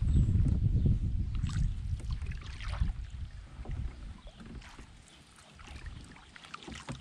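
Water splashing and lapping around a solo canoe, in short swishes, with wind rumbling on the microphone that is strongest in the first few seconds and then eases.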